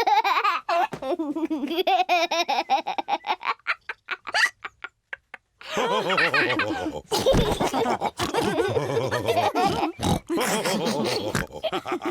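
Cartoon pig characters laughing with snorts, the laughter falling away to a short lull about halfway and then breaking out again, fuller, until the end.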